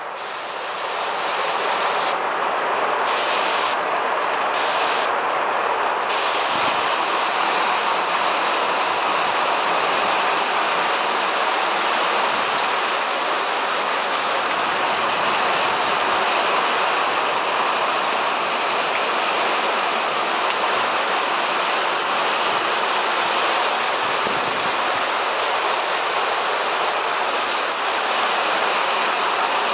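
Heavy thunderstorm rain pouring down in gale-force wind, a steady, even wash of noise that swells slightly in the first second.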